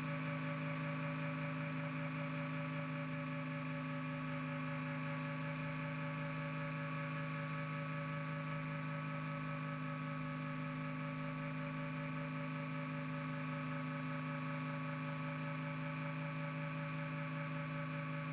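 Hummingbird helicopter in flight, heard from inside the cockpit: a steady drone of engine and rotor with several held tones that do not change in pitch or loudness.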